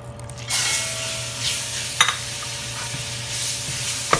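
Raw ground pork sizzling as it drops into hot annatto oil in a stainless steel pot, the hiss starting suddenly about half a second in and going on steadily as a wooden spatula stirs it. Two sharp knocks come about two and four seconds in.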